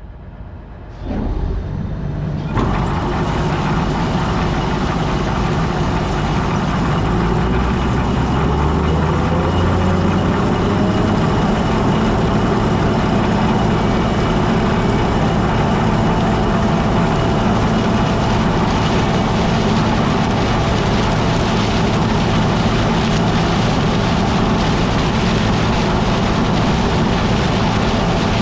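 Combine harvester running steadily, its machinery speeding up with a tone rising in pitch about eight to twelve seconds in, then holding steady.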